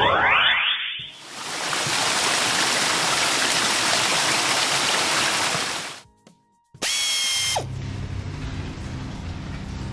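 Cartoon car-wash sound effects: a rising whir ends in the first second, then a steady hiss of water spraying from the nozzles for about five seconds, which cuts off suddenly. A short bright tone follows, and background music carries on after it.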